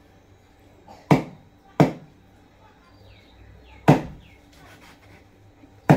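Heavy kitchen knife chopping through pieces of fermented pork onto a wooden cutting board: four sharp chops at uneven intervals, two close together about a second in and two more spaced out later.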